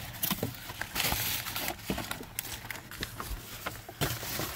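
Paper and packaging rustling and crinkling as parts are handled, with scattered small clicks and taps.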